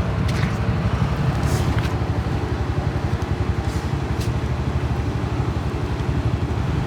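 An engine running steadily at an even pace: a continuous low rumble, with a few light clicks or knocks over it.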